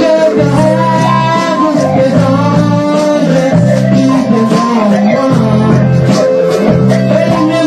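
Loud band music with guitar, a bass line and percussion keeping a steady beat.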